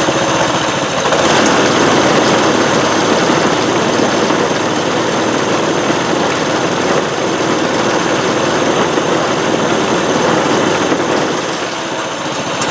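DR Powerwagon utility cart's small gas engine running steadily on a test run after its fuel tank was replaced with a larger external tank, with fuel fed through a new line, filter and shut-off valve. It gets a little louder about a second in and eases off near the end.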